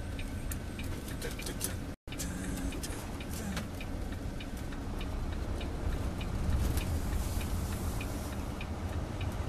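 Semi-truck engine running low and steady inside the cab as the truck rolls slowly, with a turn signal ticking about twice a second.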